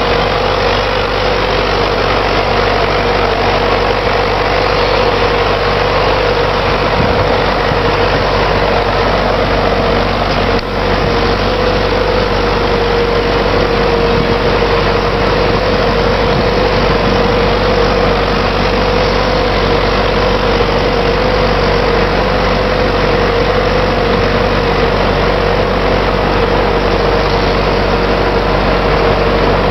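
MTZ-82 tractor's four-cylinder diesel engine running steadily while the tractor drives through deep snow. A steady hum sits above the engine note, and the level dips briefly about ten seconds in.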